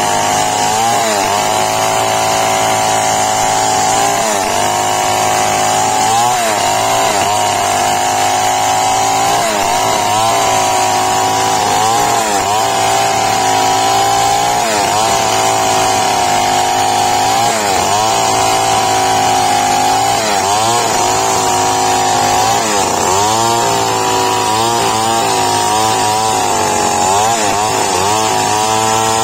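Old long-bar two-stroke chainsaw running at high speed while ripping lengthwise through a teak beam. Its engine note dips and recovers again and again as the chain bogs under load in the cut.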